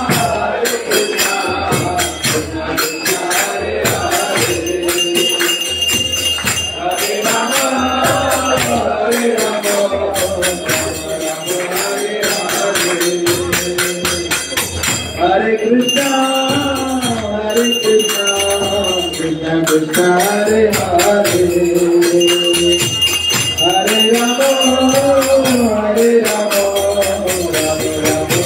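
Devotional kirtan: voices chanting a melodic refrain over jingling metal percussion that keeps a quick, steady beat.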